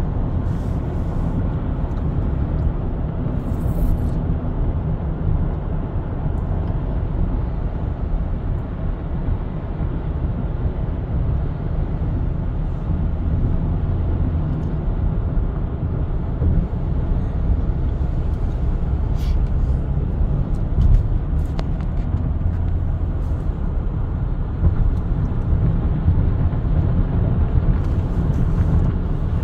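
Steady road noise of a car driving at highway speed, heard from inside the cabin: an even low rumble that holds without change.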